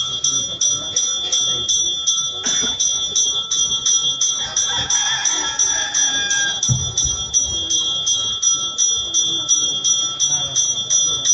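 Puja bell rung rapidly and steadily, about four to five strokes a second, in ritual worship, with a low thump about seven seconds in.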